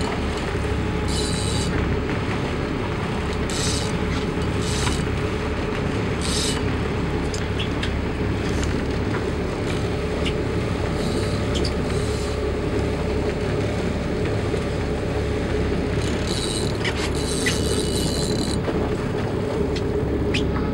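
A boat's inboard engine running steadily at low speed, with short high-pitched scraping bursts every few seconds.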